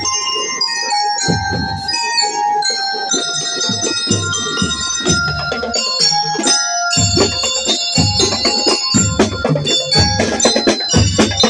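Marching band of mallet bells (glockenspiels) ringing out a bright melody over bass drums and snares. The drumming turns steady and dense about seven seconds in.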